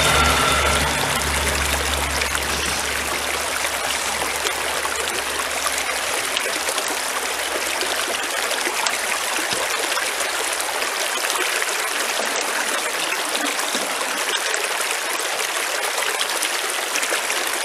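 Shallow stream water running steadily over rocks and through a small metal gold-washing sluice box.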